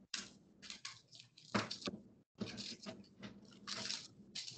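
Dry, papery outer skin being peeled off a red onion, crackling and rustling in irregular bursts. The sound drops out briefly about two seconds in.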